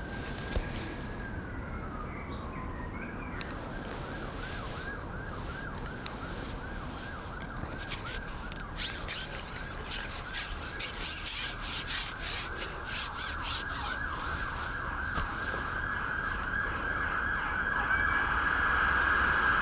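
Emergency vehicle siren: a slow wail that rises, holds and falls, then switches to a fast repeating yelp that grows louder near the end. A rubbing, scraping noise comes through in the middle.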